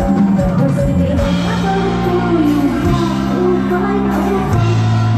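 Live band music with singing over a held bass line whose note changes every second or two.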